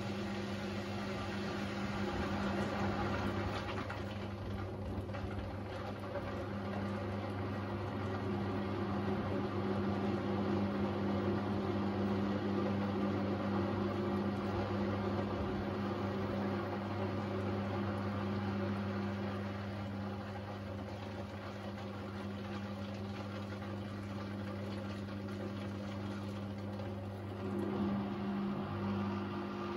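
Beko WDR7543121S washer-dryer in its wash phase: the drum motor hums steadily while the soapy load and water slosh around inside the turning drum. Near the end the hum wavers and briefly gets louder.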